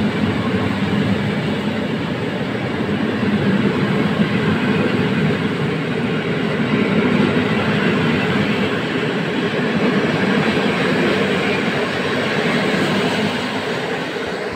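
PKP Intercity passenger coaches rolling past as the electric-hauled train pulls out of the station, with steady wheel-on-rail noise. The sound starts to fade near the end as the last coach goes by.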